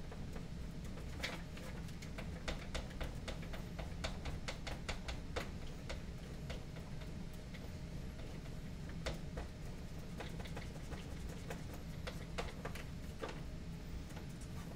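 Irregular light clicks and taps of thin laser-cut wooden parts being handled and pressed together during assembly, over a low steady hum.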